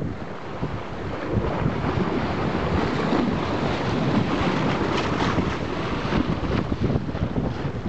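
Wind buffeting the microphone over the steady rush and splash of seawater along a sailboat's bow as it sails through ocean swell.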